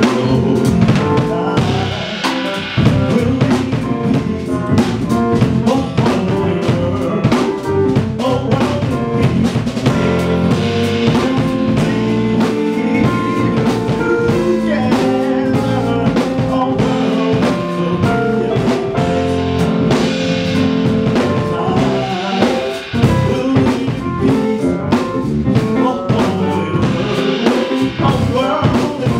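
Live jazz band playing: drum kit with rimshots and cymbals, electric bass guitar and keyboard, in one continuous passage.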